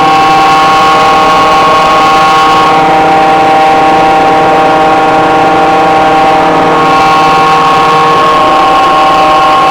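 Variable-frequency screw air compressor running loudly, with a steady whine over a broad machine noise. Some of its tones shift about three seconds in and again about seven seconds in.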